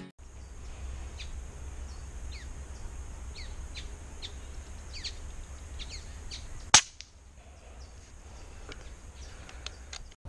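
A single sharp shot from a .22 (5.5 mm) PCP air rifle about two-thirds of the way in, the loudest sound. Behind it are background birdsong of short falling chirps and a steady high hiss.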